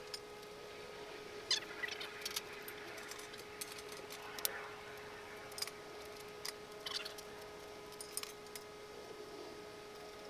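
Scattered light metallic clicks and clinks, as of tools and bolts being handled, over a steady faint hum.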